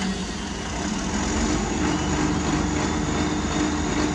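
Komatsu PC300 hydraulic excavator's diesel engine running steadily with a constant hum, getting slightly louder about a second in.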